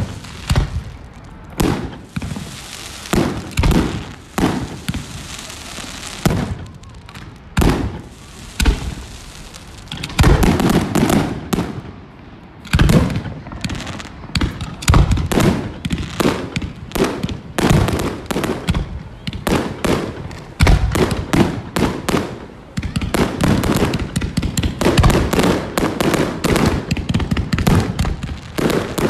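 Fireworks display: aerial shells launching and bursting one after another in sharp bangs, the barrage becoming much denser about ten seconds in.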